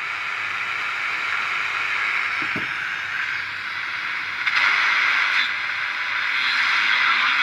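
Radio receiver's speaker hissing with static, no station tuned in. There is a brief low tone about two and a half seconds in, and the hiss grows louder a little past halfway.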